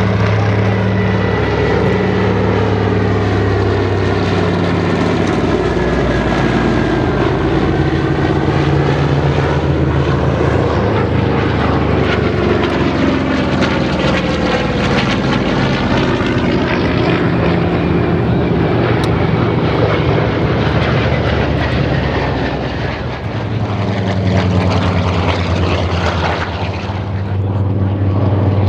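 Radial-engined WWII navy warplanes flying low past one after another: a twin-engine PBY Catalina flying boat, then an FG-1D Corsair, then a TBM Avenger. The engine and propeller drone sweeps in pitch as each plane passes, dips briefly, then swells loud again near the end as the Avenger comes by.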